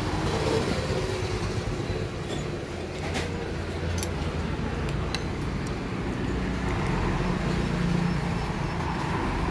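Steady rumble of street traffic with faint background voices, and a few brief sharp clicks.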